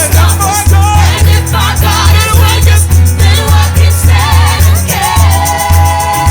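Gospel worship music from a band, with a strong, regular bass beat and voices holding long, wavering sung notes.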